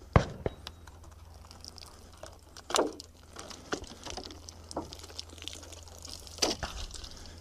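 Plastic gallon water jug being handled and emptied to recover the bullet: a sharp knock just after the start, then two short splashes of water about four seconds apart, with light clicks and rustling between.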